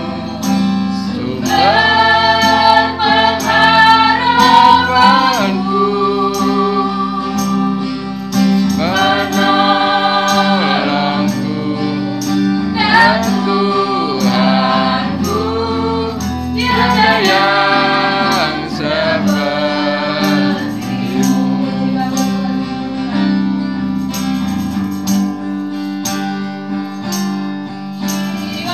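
A woman sings a gospel worship song through a microphone and PA, accompanied by acoustic guitar over steady held low notes, with a light regular ticking beat.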